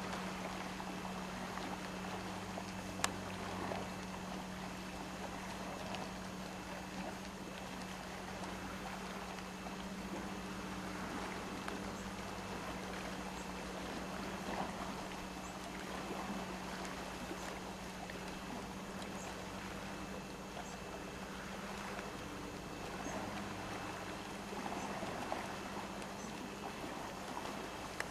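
Steady low motor hum under water lapping and splashing that swells and fades, with a sharp click about three seconds in.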